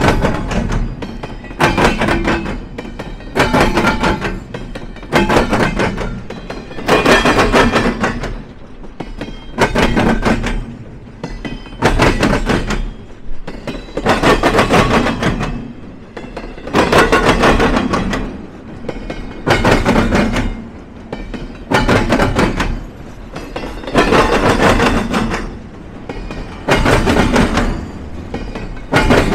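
Freight train cars rolling over a railroad diamond crossing, the wheels clattering across the gaps in the crossing in a steady repeating rhythm, with a loud bang-and-rumble roughly once a second, often in pairs.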